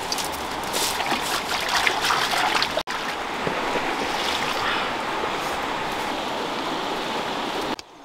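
Steady sound of running water, with a few light clicks in the first few seconds.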